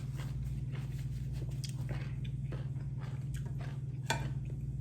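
A person chewing and biting food close to the microphone, with scattered small crunches and clicks, over a steady low hum.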